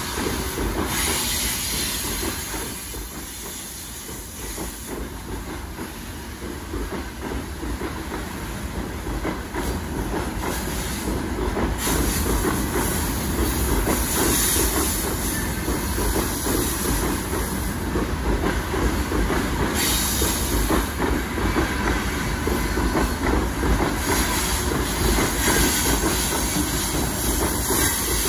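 Freight train rolling past, its wheels clattering on the rails in a continuous loud rumble that grows louder about twelve seconds in.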